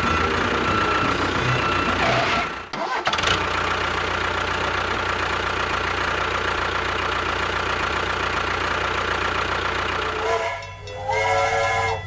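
A small machine runs steadily, with a brief drop-out about two and a half seconds in. Near the end a pitched, horn-like tone sets in.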